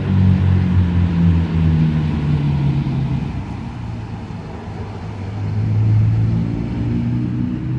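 A motor vehicle engine running close by: a low drone whose pitch shifts slowly. It eases off about four seconds in and grows louder again around six seconds.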